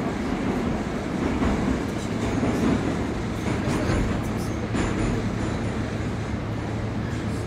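Moscow metro train heard from inside the car: a steady loud rumble of wheels and running gear. A low steady hum joins about halfway through.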